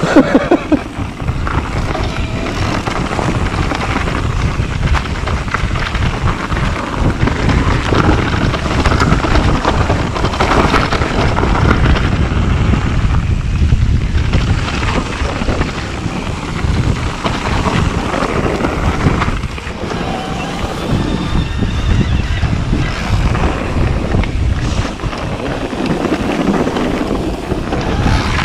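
Mountain bike descending a dirt singletrack: wind buffeting the microphone over steady tyre rumble and the bike's rattling, with a few sharp knocks in the first second.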